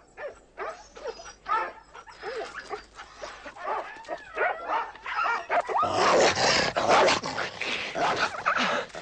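Dogs yelping and whimpering in short high cries that become denser and louder about six seconds in.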